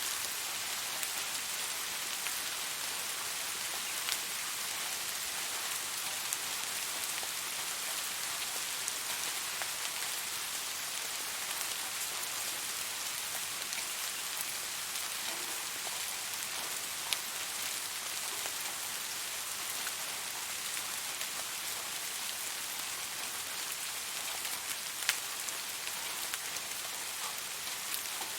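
Steady rain falling, an even hiss with occasional sharper drops ticking out, the loudest about 25 seconds in.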